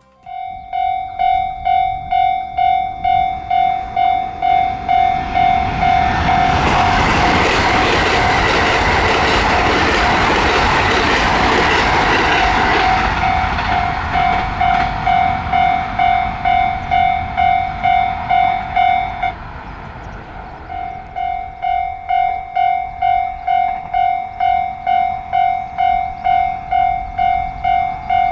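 Japanese level-crossing warning bell ringing in steady electronic dings, about one and a half a second, while a train on the Hokuriku Main Line rushes past through the crossing, loudest about a third of the way in. The bell cuts out for a second or two about two-thirds of the way through, then starts ringing again.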